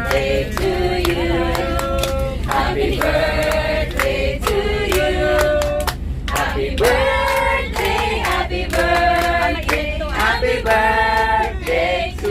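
A group of people singing together, with held notes and sliding pitches over a steady low rumble.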